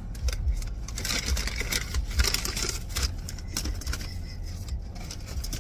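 Plastic takeout containers being handled and opened: a quick run of clicks and crinkles, loudest about one to three and a half seconds in, over a steady low rumble.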